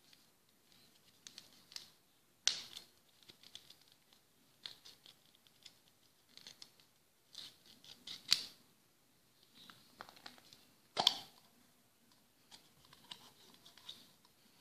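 Plastic packaging being torn off a plastic candy cup: a printed plastic sleeve and a plastic tear strip pulled from around the lid, with small crinkles and scratches and three loud sharp crackles spread through.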